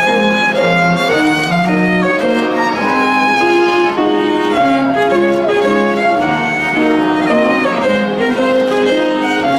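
Violin playing a lyrical melody in held, stepwise notes over a lower accompaniment.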